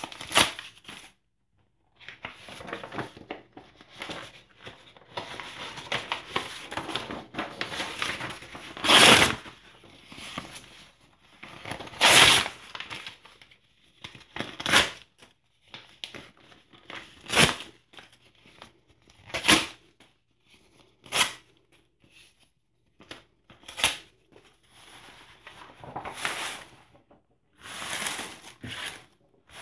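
Hands tearing newspaper advertising pages into strips, with about nine sharp rips every two or three seconds. Paper rustles and crinkles between the rips, most steadily through the first third.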